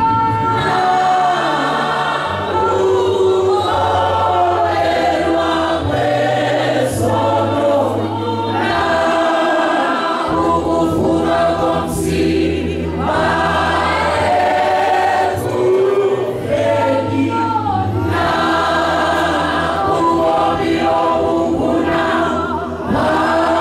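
Church congregation singing together in many voices, without pause.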